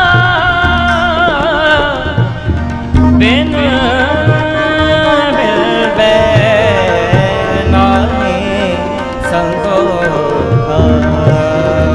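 Gurbani kirtan in raag: male voices hold long notes, ornamented with wavering turns, over the steady reeds of two harmoniums. A tabla pair keeps a steady rhythm beneath.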